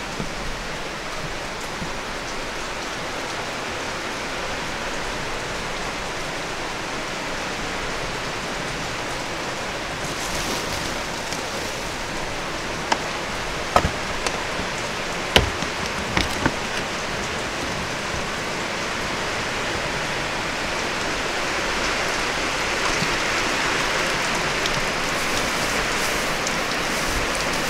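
Steady hiss of falling rain, growing slightly stronger in the second half, with a few sharp clicks about halfway through.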